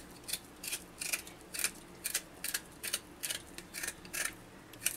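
Kitchen knife scraping the skin off a small taro corm (gati kochu) in short, quick strokes, about three a second.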